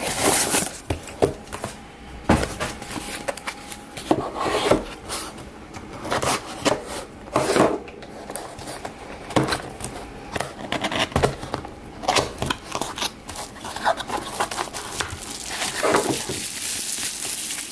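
Hands unpacking a packaged battery: irregular rustling and crinkling of packaging with small knocks and taps, growing busier near the end.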